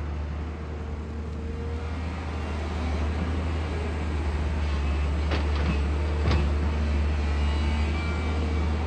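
JCB 215 excavator's diesel engine running steadily at work, getting a little louder about three seconds in, with two sharp metallic clanks about a second apart past the middle.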